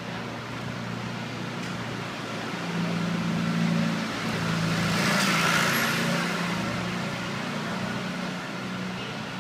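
Street traffic: a passing vehicle's noise swells to a peak about halfway through and then fades, over a steady low engine hum.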